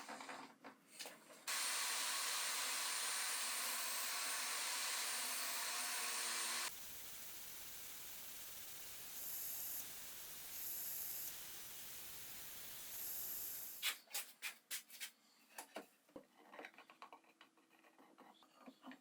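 A power tool working on wood, with a steady loud hiss for about five seconds that cuts off abruptly, followed by quieter steady noise that swells briefly three times. Near the end come irregular clicks and knocks of wood pieces and tools being handled.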